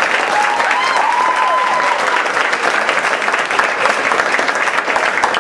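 Theatre audience applauding, the clapping dense and steady, with a voice whooping briefly about a second in.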